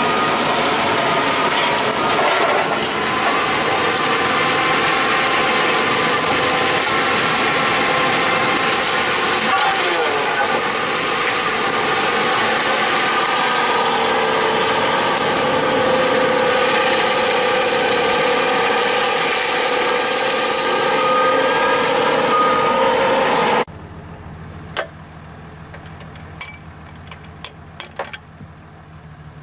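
Tree-felling machine's saw head and engine working hard as it cuts through and fells a standing pine: loud, dense mechanical noise with steady whining tones that shift in pitch. It cuts off abruptly about three-quarters of the way in, giving way to a quieter low hum and a handful of sharp metallic clicks.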